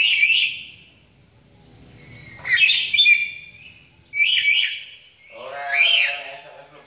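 A bird from Papua calling in short, repeated bursts of high notes that twist quickly up and down in pitch, four bursts about one and a half seconds apart.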